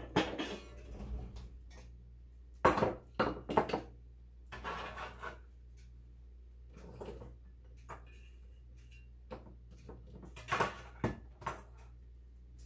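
Kitchen drawer pulled open and rummaged, then a run of clinks, knocks and scrapes of glass and plastic as chopped onion is moved from a plastic cutting board into a glass mason jar through a plastic funnel. The clatters come in short separate clusters, with the loudest about three seconds in and again about ten seconds in.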